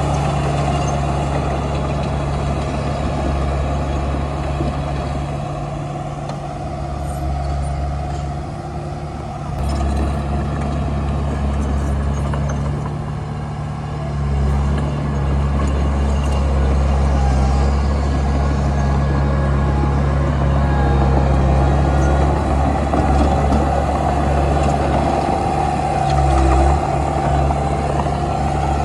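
Komatsu D31P bulldozer's diesel engine running steadily with a low drone. It eases off a little for a few seconds in the first half, then runs louder under load again from about halfway through.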